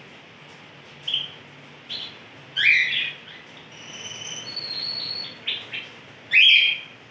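Caged Larquet canary singing in short phrases of high chirps and trills, with a held whistled note in the middle and the loudest phrase near the end.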